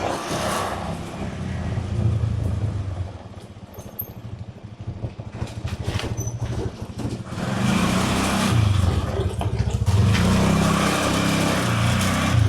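Engine and road noise of a vehicle on the move. It falls off for a few seconds in the middle, then grows louder again.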